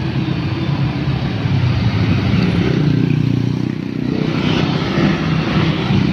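Dense road traffic: many motorcycles and scooters passing close by, their small engines running together in a continuous hum, with a car going past among them.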